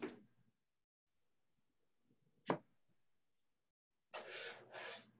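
Near silence, broken by a sharp click about two and a half seconds in and three short hissy rushes of noise near the end.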